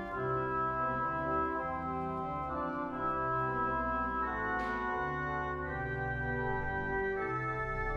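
Church organ playing slow, sustained chords over a held bass line, the notes changing every second or so.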